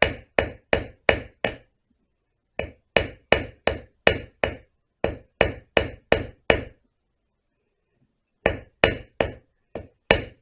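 Ball-peen hammer tapping on a chainsaw chain rivet, peening its head over to join the chain. The light, sharp metal taps come about three a second, in four quick runs with short pauses between.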